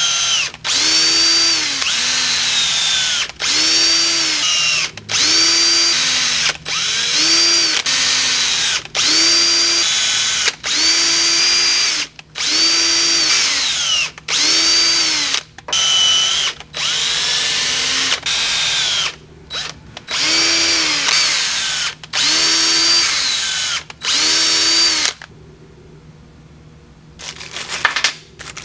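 Cordless drill drilling holes in a machined housing, run in more than a dozen short trigger bursts; in each the motor's pitch rises as it spins up, holds while cutting and drops as the trigger is released. The drilling stops near the end, and a plastic bag crinkles.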